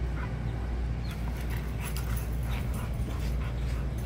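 Several dogs playing rough together, giving short high-pitched vocal sounds scattered through, over a steady low rumble.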